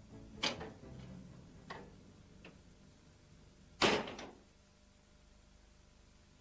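A few light knocks, then a door shutting with a sharp bang about four seconds in.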